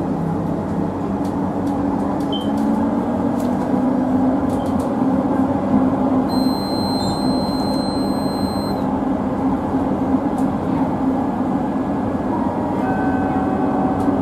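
LRT Jabodebek electric light-rail train running along its elevated track, heard from inside the driver's cab: steady rolling and motor noise with a low hum that rises a little in pitch about a second in. About six seconds in, a high steady electronic beep sounds for about two and a half seconds.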